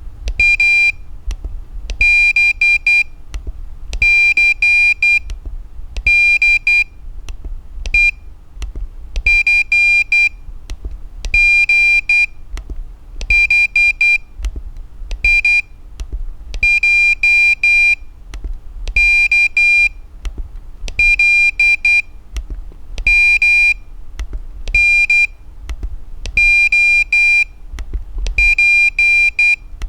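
Flipper Zero's piezo buzzer beeping out Morse code: high-pitched short and long beeps in groups, about one group every two seconds.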